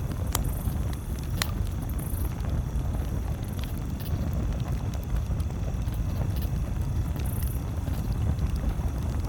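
Campfire crackling, with scattered sharp pops, over a steady low rumble.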